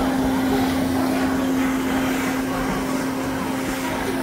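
Build-A-Bear stuffing machine's blower running while its foot pedal is held down, blowing fiberfill into a plush toy: a steady hum over a rush of air.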